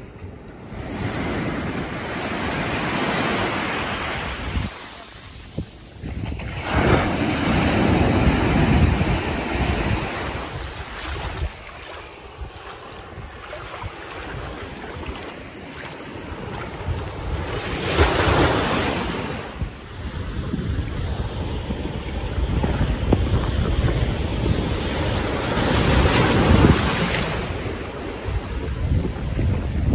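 Small waves washing up on a sandy beach and running back, the rush of surf swelling and easing in surges every several seconds, with wind buffeting the microphone.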